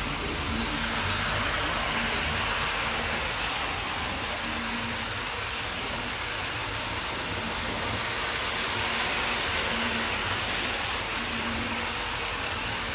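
Hornby Class 47 model locomotive and its rake of five coaches running on model railway track, a steady hissing rumble of motor and wheels on rails that swells a little about a second in and again around eight seconds.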